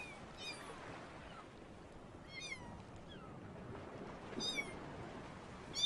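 Kittens mewing: about five short, high cries that each fall in pitch, spread over a few seconds, over a steady rushing background noise.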